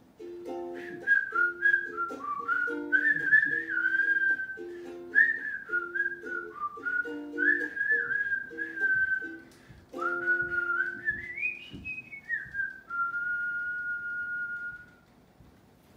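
A person whistling a melody over strummed ukulele chords. Near the end the whistling climbs to a high note, then settles on one long held final note after the ukulele stops.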